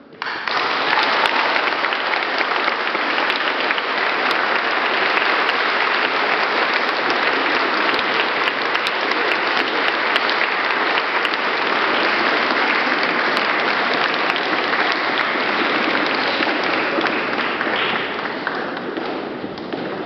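Audience applauding in a concert hall: a dense burst of clapping that starts all at once as the music ends, holds steady, and thins out near the end.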